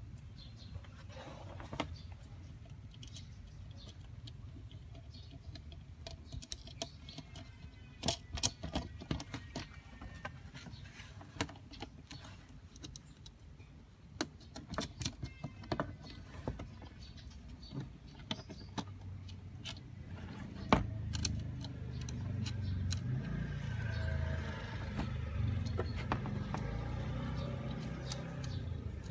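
Small sharp clicks and clinks of hand work on a digital prayer clock's parts and module, over a steady low rumble. One louder knock comes about two-thirds of the way in, after which the rumble grows louder.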